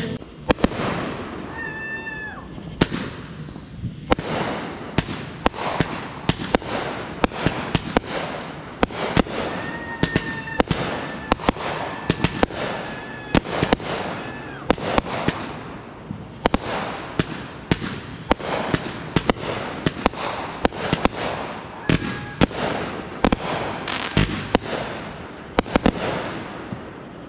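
Consumer aerial fireworks firing in quick succession: a dense run of sharp launch thumps and bursting bangs, with a few brief whistling tones among them.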